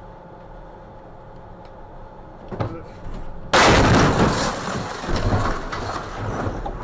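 A car collision heard from inside a vehicle: a sharp knock, then about a second later a sudden loud crash that trails off into noise.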